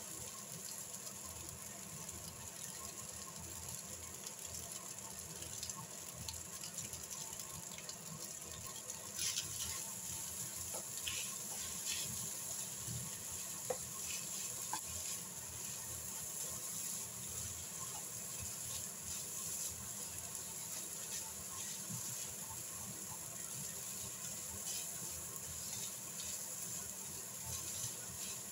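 Fried rice sizzling steadily in a nonstick frying pan while a spatula stirs and scrapes through it, with scattered light scrapes and ticks from the spatula on the pan.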